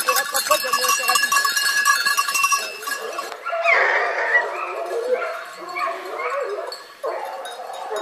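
Bells on a pack of hunting hounds jingling and ringing as the dogs move. After an abrupt change about three seconds in, there are wavering calls from hounds baying in the woods while working a wild boar.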